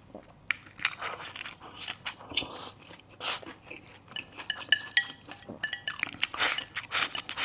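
Close-up eating sounds: chewing and crunching mouthfuls of stir-fried wild chicken mushrooms and pork, with a few light clinks of utensils on a bowl around the middle.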